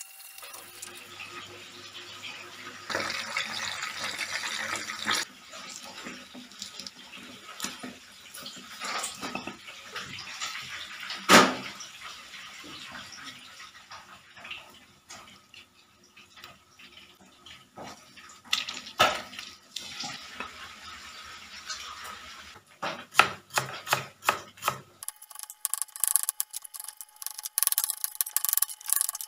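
Water splashing and trickling, with a sharp knock about eleven seconds in, a few clicks later, and a quick run of clicks near the end.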